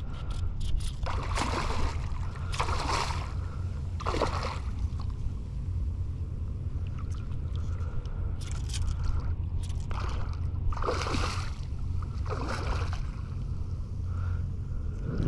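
Water sloshing and splashing in about seven short surges, each roughly half a second, at irregular intervals, over a steady low rumble.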